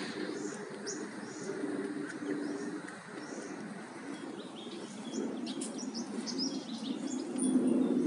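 Birds chirping in short, high calls that come thicker about five seconds in, over a steady low rumble of outdoor background noise, as picked up by a Xiaomi Redmi 4X phone's microphone.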